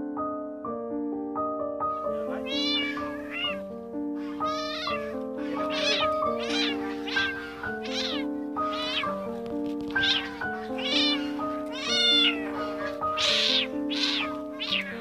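A kitten meowing over and over, about once a second, starting about two seconds in, over background piano music.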